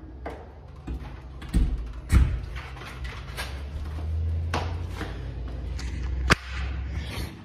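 A few knocks and thumps, the loudest about two seconds in, then handling noise as the camera phone is picked up and moved: a low rumble of rubbing on the microphone, ending in a sharp click.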